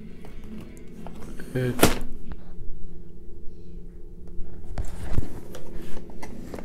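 A sharp thunk about two seconds in, then a steady low tone with a couple of dull bumps near the end.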